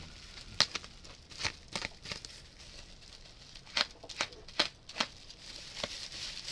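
Box cutter slicing through packing tape around a stack of graded comic slabs, in short irregular cuts and scrapes with crinkling of tape and plastic.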